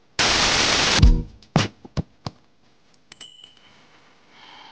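Animated subscribe-button outro sound effects: a loud whoosh ending in a low boom, three sharp pops, then a quick run of clicks with a bell-like ding.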